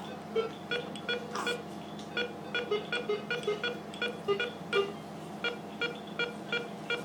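NICU bedside monitor beeping quickly with the baby's pulse, short electronic beeps about three a second, a few of them slightly lower in pitch, over a steady equipment hum.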